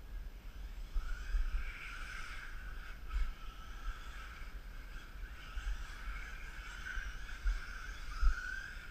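Electric motor and gear whine of a 1/14-scale RC rally car, wavering up and down in pitch with the throttle, over low rumbling with a few thumps, the loudest near the end.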